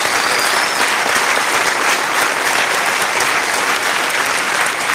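Audience applauding, a steady dense clapping at the end of a talk.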